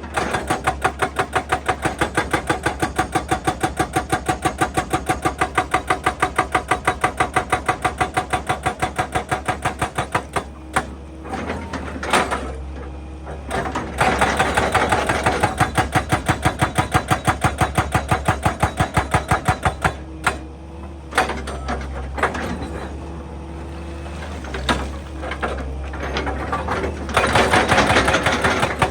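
Excavator-mounted hydraulic breaker hammering rock, a fast even run of about four to five blows a second. It stops after about ten seconds, starts again for about six seconds and once more near the end, with the excavator's engine running between the runs.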